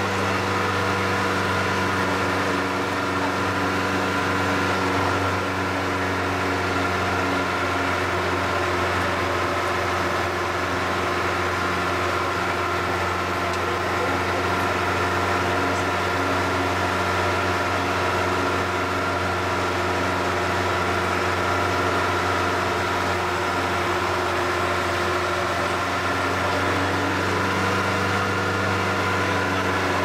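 Vehicle engine running steadily at an even speed with road noise, heard from inside the vehicle, an unchanging drone without revs rising or falling.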